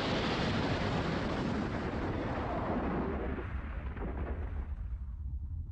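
Explosion and roaring rumble of an airliner crashing, a dense roar that dies away over about five seconds, its hiss fading first and a low rumble left at the end.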